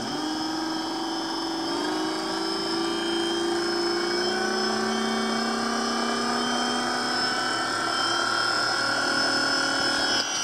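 E-Max 11.1 V outrunner brushless motor spinning the magnet rotor of a homemade magnetic heater, starting up with a whine that climbs slowly in pitch as it spins up over several seconds, then runs steadily.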